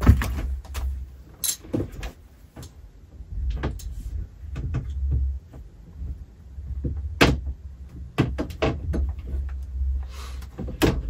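Rummaging on a closet shelf: irregular knocks, clicks and rustling as things are shifted about, with a low rumble underneath. The loudest is a sharp knock about seven seconds in.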